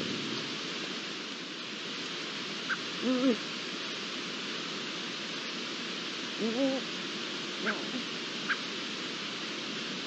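Two short wavering calls from an Iberian lynx out of sight, about three seconds in and again some three seconds later, over a steady hiss; a few faint ticks follow near the end.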